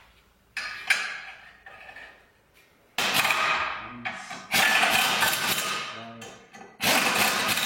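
Impact wrench run in four short bursts, driving home the 13 mm bolts that hold a new ball joint to a VW Golf 4's lower control arm.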